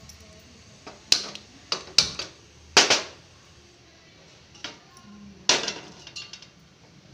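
A few sharp clicks and knocks as a gas stove burner is lit, then a metallic clatter about five and a half seconds in as an aluminium pot is set down on the burner grate.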